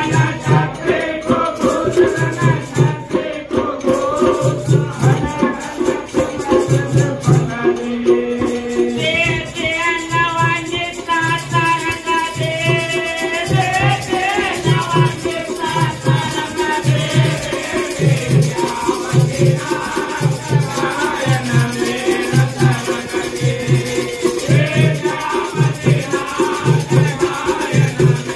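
Live Holi phag folk song: a drum keeps a steady beat about once a second under jingling, rattling percussion, with voices singing.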